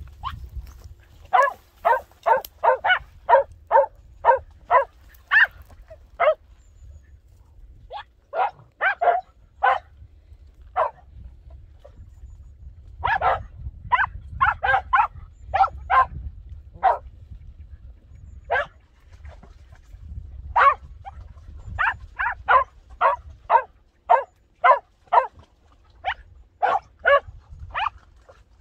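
A podenco barking in quick runs of short, sharp barks, about three a second, with pauses of a second or two between runs.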